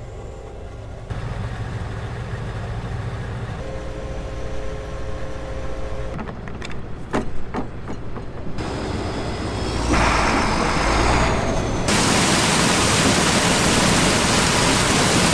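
Farm machinery engines running in a series of short cuts, changing abruptly several times. A few sharp knocks come partway through, and a loud steady rush of machine noise takes over near the end.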